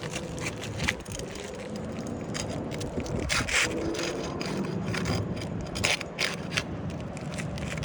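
Scraping and crackling of an old, brittle asphalt roof shingle being pried up off its sealant strip, in a string of short strokes with the loudest cluster about midway.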